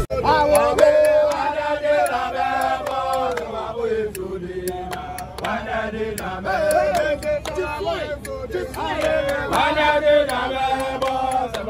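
A group of men chanting a song together in long held lines, with short sharp clicks or claps running through it.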